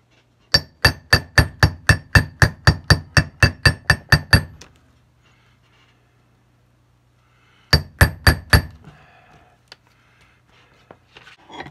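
Ball-peen hammer striking a steel hand hole punch through gasket paper resting on a steel bar, cutting bolt holes in a paper gasket. There is a quick run of about sixteen ringing metal blows, about four a second, then a pause and a few more blows.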